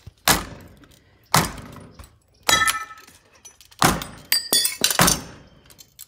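Repeated thuds of a plush toy being slammed against a cracked window in a metal frame, about five hits a second apart. Some hits are followed by a brief glassy ringing and clinking of loose glass.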